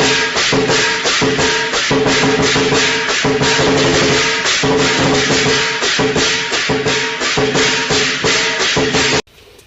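Background music with a fast, steady percussion beat of about four strokes a second over sustained tones, cutting off abruptly near the end.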